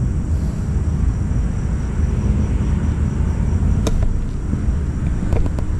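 Low, uneven rumble of wind buffeting the microphone, with a sharp click about four seconds in.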